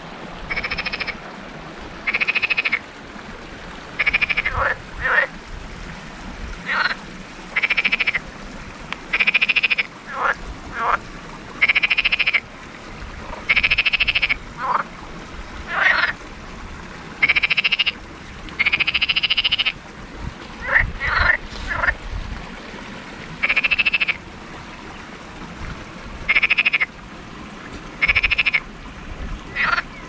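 Frogs croaking at a stream: a run of rattling, pulsed calls about a second long, roughly every one to two seconds, with shorter sharp chirps between them. Under the calls runs the steady rush of shallow water flowing over stones.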